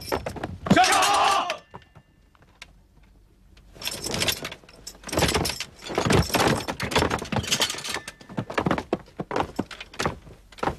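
A horse whinnies briefly, then after a short pause comes a burst of metallic clanking and jangling: sabres being drawn, raised and crossed by a row of soldiers, going on as scattered clinks.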